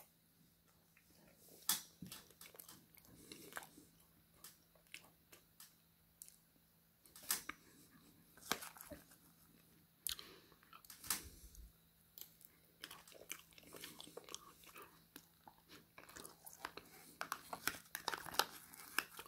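Quiet mouth sounds of eating chocolate mousse, with scattered sharp clicks and scrapes of a spoon against a plastic dessert pot, coming more often near the end.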